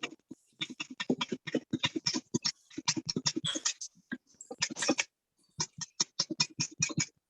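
A spoon or fork beating an egg and milk mixture in a cup: a fast run of clicks against the cup's sides, broken by two short pauses.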